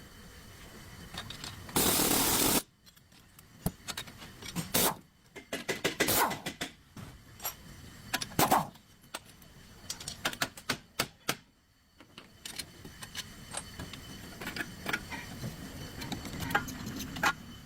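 Irregular clicks, knocks and short scrapes, with a brief loud burst of noise about two seconds in.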